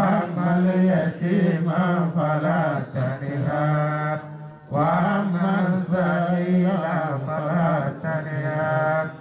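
A man chanting solo into a microphone, in long melodic phrases with held notes, broken by short pauses about three and four and a half seconds in.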